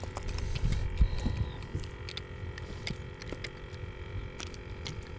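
Low wind rumble on the microphone with scattered sharp clicks and taps, as a small hooked fish is swung in on the line and grabbed beside the boat.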